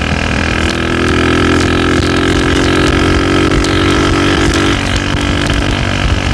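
Honda GL Pro motorcycle engine running under way through its stock-shape exhaust, a little loud. The engine note holds and creeps up slightly, then drops about three-quarters of the way through.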